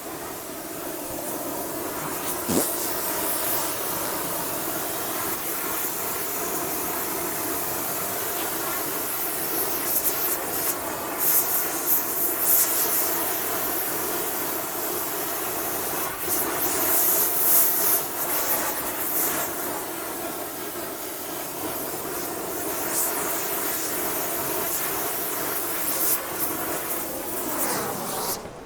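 Welding on a driveshaft: a steady hiss with crackles running throughout, cutting off suddenly at the end.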